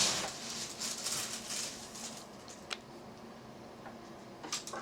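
Dry grain being poured into a plastic bottle hopper on a grain mill, a pattering rustle that dies away over the first couple of seconds, followed by faint rustles and a few light clicks near the end.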